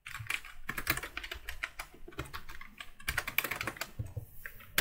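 Typing on a computer keyboard: a rapid, uneven run of key clicks as a word is typed into a field.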